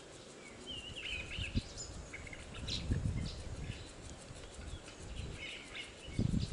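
Birds chirping on and off in the background, with a few faint clicks and a low rumble that swells around the middle and again near the end.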